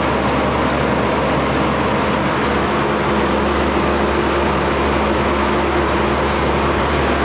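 A steady mechanical whir with a low hum from a running machine, unchanging throughout.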